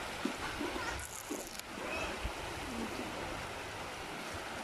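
Creek water running steadily, with a brief higher hiss about a second in.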